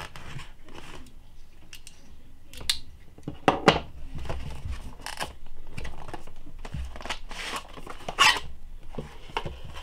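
Cardboard packaging being opened by hand. A utility knife slices through packing tape at the start, then cardboard scrapes and rustles as a printed sleeve is slid off the inner box, with several sharp scrapes along the way.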